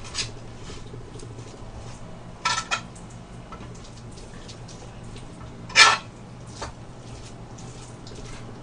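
A metal spoon scraping and clinking against a plate as rice is mixed into leftover sauce: a few short scrapes, a small cluster about two and a half seconds in, and the loudest clink just before six seconds in.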